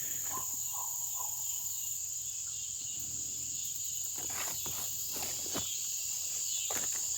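A steady, high-pitched insect chorus at dusk, with soft rustling steps through the garden vines in the second half.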